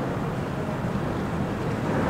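Steady low rumble of car traffic crossing the highway bridge overhead, heard from beneath the bridge.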